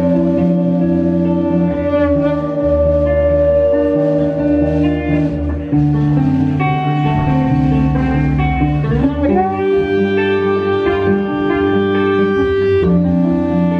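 A live band playing saxophone and electric guitar over drums. About nine seconds in, a note slides up and is held for about three seconds.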